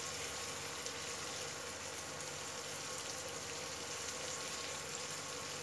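Sliced onions and green chillies sizzling steadily in hot oil in a kadai as they are stirred.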